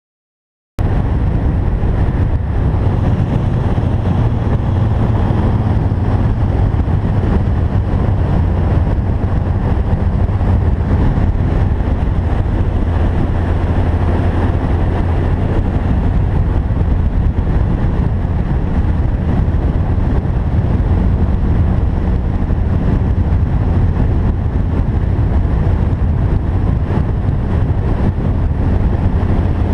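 Loud, steady rushing noise, heaviest in the low end, that cuts in abruptly about a second in and holds without change.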